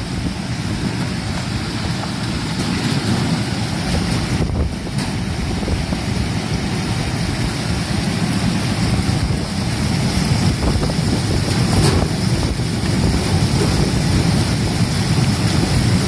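Commercial fruit and vegetable washing machine running: a steady mechanical noise mixed with churning water, growing slightly louder.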